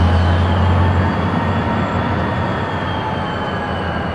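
Freight cars rolling through the rail yard with a steady rumble and thin, high steel-wheel squeal. Under it, a locomotive's low engine hum eases off about a second in.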